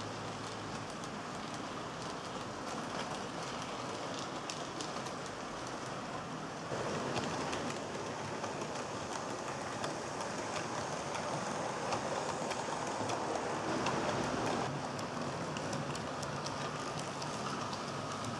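HO scale model trains running on the layout's track: a steady rushing noise of wheels and motors with fine clicking over rail joints, louder for several seconds starting about a third of the way in.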